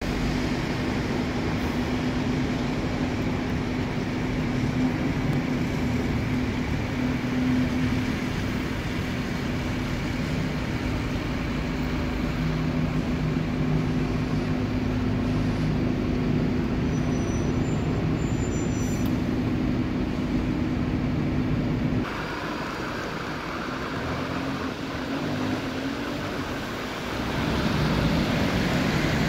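Bus station traffic: bus engines running with a steady low hum over wet-road noise. About three-quarters of the way in the sound changes suddenly to a thinner hiss of tyres on a wet street, which swells near the end as a vehicle passes.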